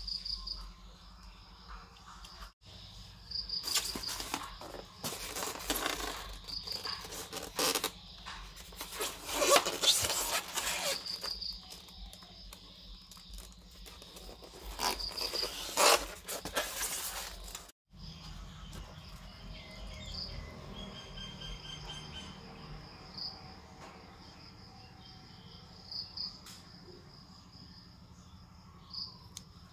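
Crickets chirping steadily in the background, with stretches of loud rustling and scraping as cardboard and polystyrene packaging is handled and the foam parts tray is lifted out of the box.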